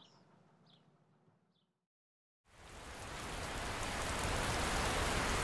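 Near silence with a couple of faint bird chirps, then the sound of steady rain fades in about halfway through and builds to a constant hiss.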